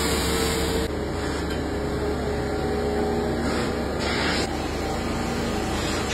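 Steady whirring hum of tyre-retreading workshop machinery, with faint steady whining tones. The hiss drops off abruptly about a second in.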